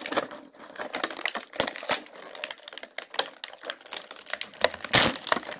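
Scissors snipping through stiff clear plastic blister packaging, the plastic crinkling and crackling in quick irregular clicks, with a louder crackle near the end.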